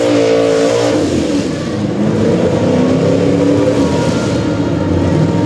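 Square-body Chevrolet pickup's engine running hard under load as it drags a weight-transfer sled down a dirt pulling track. The engine note sags slightly about a second and a half in, then holds steady again.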